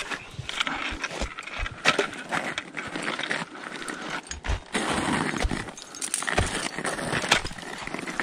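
Climbing hardware, carabiners and slings, clinking and jangling, with irregular crunching steps in snow.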